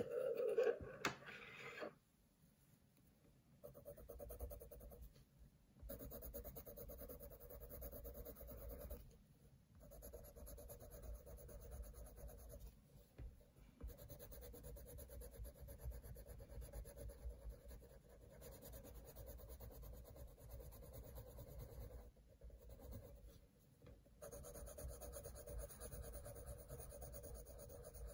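Coloured pencil shading on sketchbook paper: steady scratchy strokes with short pauses between runs. A brief, louder rustle comes first, as a hand settles on the page.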